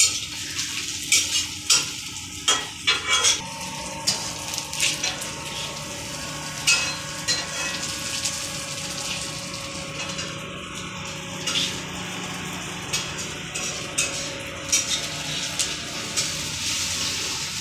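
Food sizzling as it fries in a steel kadhai, with a spatula scraping and clinking against the pan at irregular moments, most often in the first few seconds.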